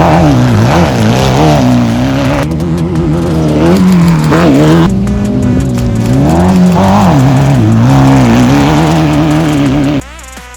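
Off-road race car engine, loud and close, its pitch rising and falling over and over as it revs and backs off through the gears. It cuts off abruptly near the end.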